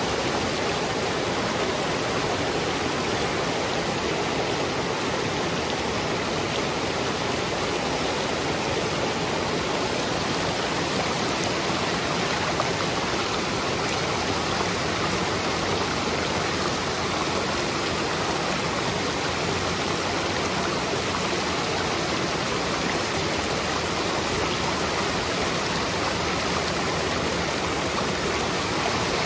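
A mountain creek running high with snowmelt, rushing and splashing over rocks in small cascades: a steady, even roar of water.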